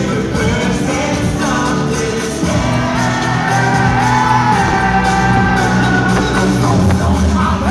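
Live pop music played loud over an arena sound system, with male voices singing a line that holds long notes in the middle.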